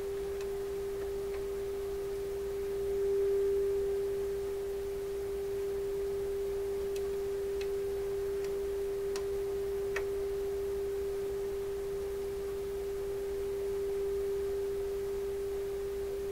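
Steady single tone from the Pye 39HC receiver's speaker: the modulated 455 kHz test signal from a signal generator leaking through while the receiver's 455 kHz trap is being trimmed to knock it down. The tone swells briefly about three seconds in, and a few faint clicks sound midway.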